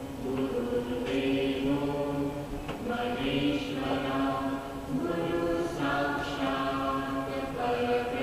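Voices chanting a devotional mantra in long, held notes, with a lower voice sounding beneath the main line.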